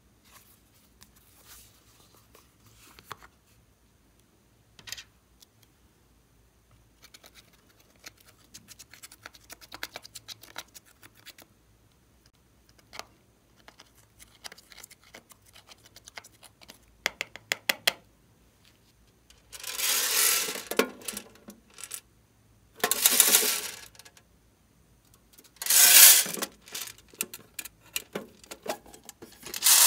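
Glossy slime with foam beads being kneaded and stretched by hand: scattered small crackles and clicks that grow busier, then several loud squishing bursts about a second long each in the last ten seconds.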